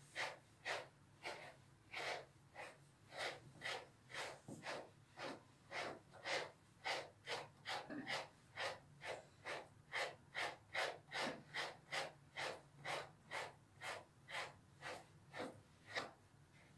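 A dog panting steadily, about two and a half quick breaths a second, close by.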